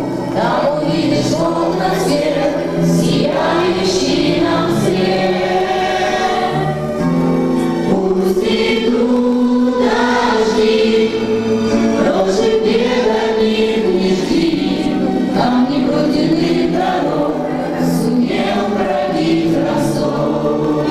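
A group of voices singing a song together in chorus, with long held notes.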